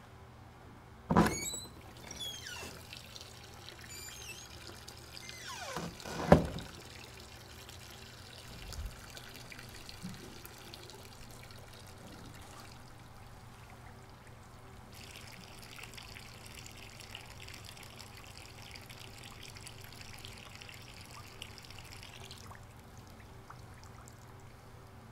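Two sharp bangs about five seconds apart near the start, then a stream of urine splashing into a urinal for about seven seconds, stopping abruptly.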